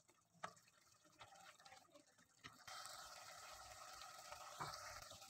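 Near silence, with a faint hiss of mutton curry bubbling in its own liquid in an open pressure cooker as it is cooked down, setting in after about two and a half seconds.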